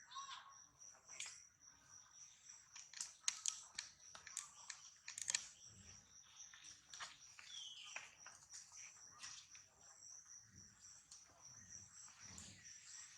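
Faint, steady pulsing trill of insects, with scattered sharp clicks.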